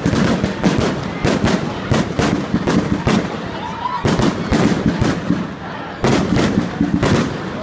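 Fireworks bursting: a rapid, irregular series of bangs, with a crowd talking between them.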